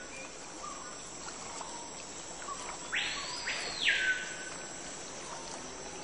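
Forest insects keeping up a steady high drone, with a harsh buzz about a second long starting about three seconds in.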